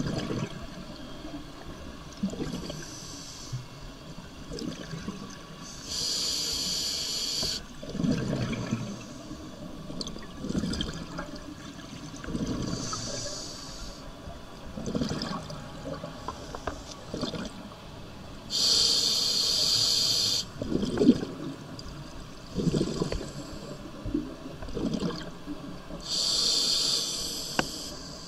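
Scuba diver breathing through a regulator, heard underwater: a hissing inhalation every few seconds, some louder than others, with bubbling exhalations gurgling in between.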